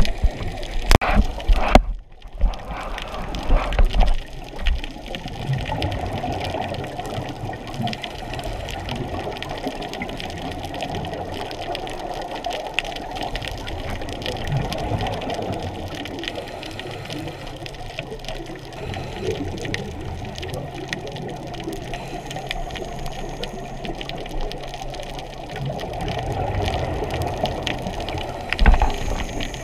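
Underwater recording of scuba exhaust bubbles and regulator breathing, heard muffled through the camera housing as a steady watery rush. Louder bubble bursts come in the first few seconds and again near the end.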